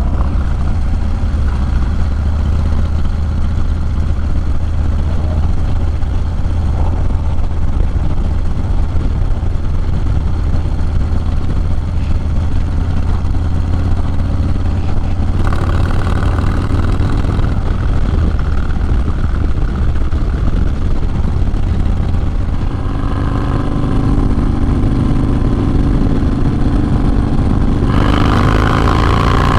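Harley-Davidson Low Rider S's 110-cubic-inch V-twin running while riding, its deep, steady exhaust note coming through a Sawicki Speed 2-into-1 exhaust. Louder mid-range noise joins it about halfway through and again near the end.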